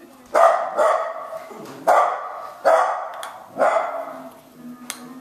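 Five short, loud barks in quick succession, each with a sharp start.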